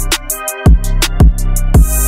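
Background music with a steady beat: a deep kick drum hitting about twice a second under hi-hat ticks and held instrumental notes.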